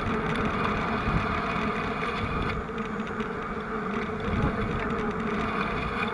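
Vehicle engines idling steadily, with a faint high squeal around the middle.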